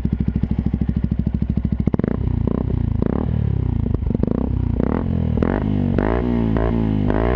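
Yamaha WR 125 R single-cylinder four-stroke engine through a Takkoni aftermarket exhaust, idling with an even beat. About two seconds in it is revved in a string of quick throttle blips, each rising and falling in pitch, coming faster toward the end.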